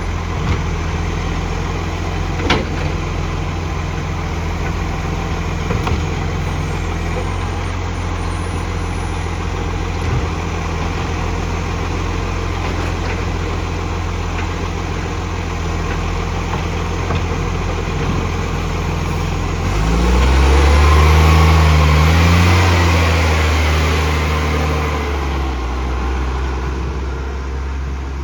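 Garbage truck's diesel engine idling steadily, with an exhaust leak. About two-thirds of the way through the engine revs up, louder and higher, holds for a few seconds, then settles back toward idle.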